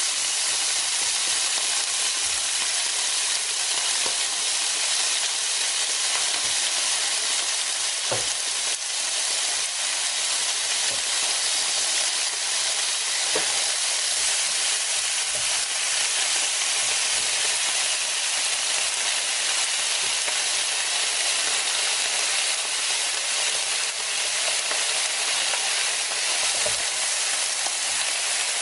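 Pork and king oyster mushroom sizzling steadily on a hot, round Korean barbecue grill plate, a constant high hiss. A few faint knocks are heard here and there.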